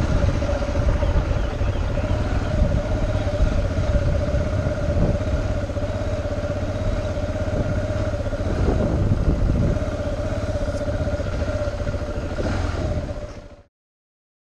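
Dual-sport motorcycle engine running at a steady pace as the bike rides along, with heavy wind rumble on the bike's camera microphone; the sound cuts off suddenly near the end.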